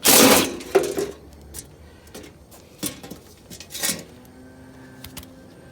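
Sheet-metal access panel of a heat pump being taken off: a loud scraping rattle, then several separate metallic clanks and knocks. A faint steady hum starts about four seconds in.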